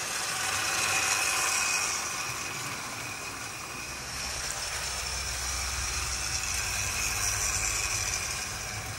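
00 gauge model trains running on the layout: the steady whirr of small electric motors and wheels rolling on the track, growing louder about a second in and again past the middle as trains pass close by.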